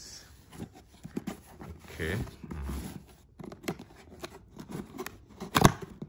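Hands handling and opening a cardboard product box: scattered rustling and scraping of cardboard, with one sharp knock near the end.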